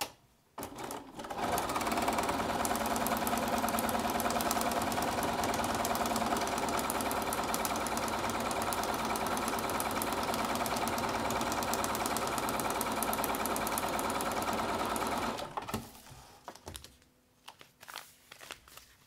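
Bernina sewing machine stitching a seam at a steady, fast speed through the fabric and foundation paper of a paper-pieced quilt block, starting about a second in and stopping near the end. After it stops come a few short clicks and paper rustles as the piece is handled.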